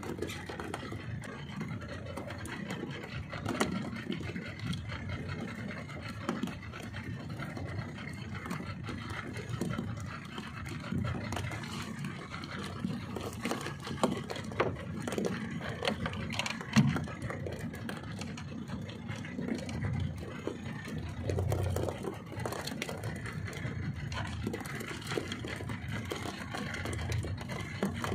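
Wind and water noise around a small open fishing boat at sea, with scattered knocks, clicks and rattles from the boat and fishing tackle.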